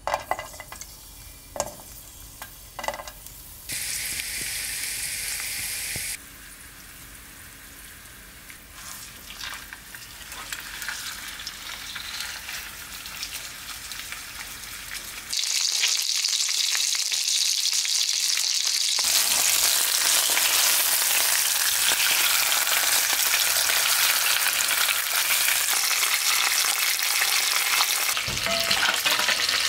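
Garlic slices and a fish fillet frying in oil in a frying pan. A few light taps in the first seconds as the garlic drops in, then the sizzle comes in cut-up stretches and turns loud and steady from about halfway.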